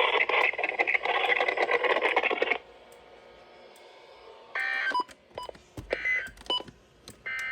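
EAS end-of-message signal: three short bursts of warbling digital data tones, evenly spaced about a second and a half apart, marking the close of the weekly alert test. Before them a loud hiss of radio noise cuts off about two and a half seconds in.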